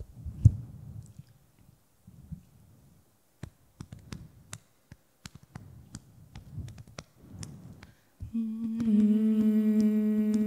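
A woman humming one steady, low note into a microphone, starting about eight seconds in. Before it, a long quiet pause with a few faint clicks and low thumps.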